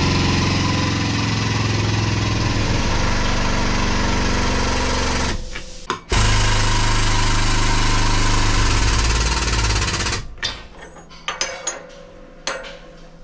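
Power tool hammering rapidly in two long runs of about five and four seconds, with a short break between them, then lighter clicks and clatter, as the suspension's worn bushings are being taken out for replacement.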